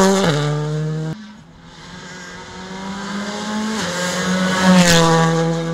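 Skoda Fabia R5 rally car's turbocharged four-cylinder engine running hard as the car climbs past, its pitch stepping down at gear changes. The engine sound drops away sharply about a second in, then builds back up loud as the car comes on again.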